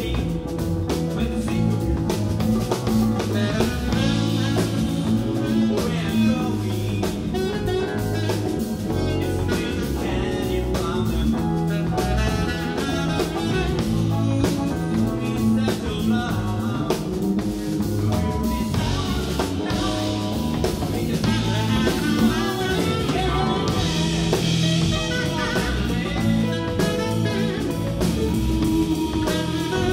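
A live jazz-blues band playing: a saxophone carries the lead over a drum kit, bass, electric guitar and keyboards.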